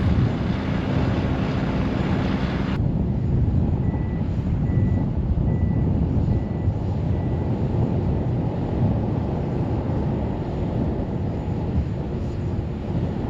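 Wind buffeting the microphone over a heavy low engine rumble, with a vehicle's backup alarm beeping faintly five times, a little under a second apart, starting about four seconds in.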